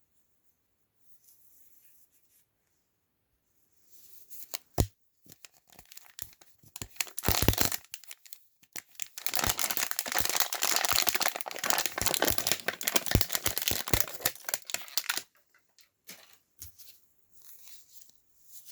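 Wrapping of an L.O.L. Surprise! toy being torn open and crinkled by hand: a sharp snap and a few short rips, then about six seconds of continuous tearing and crinkling, dying down to scattered crinkles near the end.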